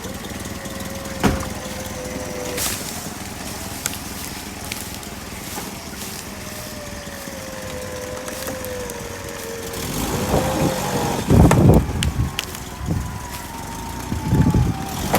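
Electric winch motor whining under load, its pitch sagging slowly as it hauls the stuck UAZ, over a vehicle engine running. About ten seconds in come loud, heavy knocks and crunching, again near the end.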